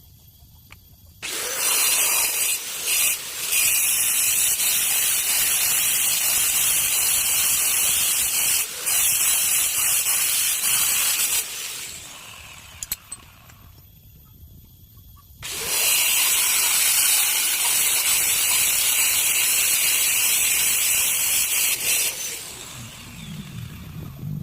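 Hand-held power tool working material in two long passes, about ten and about seven seconds long. Each pass is a loud, high-pitched, gritty noise that starts and stops abruptly.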